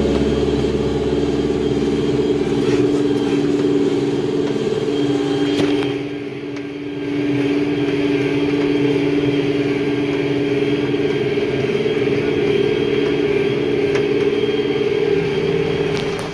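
John Deere 5100E tractor's four-cylinder diesel engine running steadily, dipping briefly about six seconds in.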